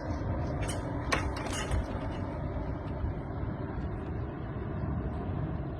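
Strong wind rushing and buffeting the microphone as a steady low rumbling noise, with a few sharp clicks in the first two seconds.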